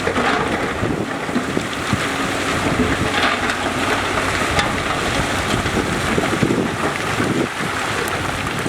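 Heavy diesel earthmoving machinery running steadily, with scattered knocks and wind buffeting the microphone.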